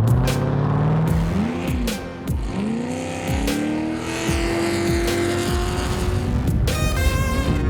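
Race Jeep engine at speed, revving up and dropping back again and again through gear changes and throttle lifts, with background music laid over it.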